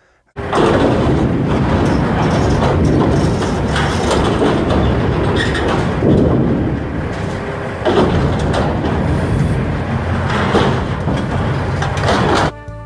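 Volvo tracked excavator running as its grapple pulls apart the wreckage of a demolished grain elevator, with a loud steady engine noise and scattered cracks and crunches of breaking debris. It starts suddenly about half a second in.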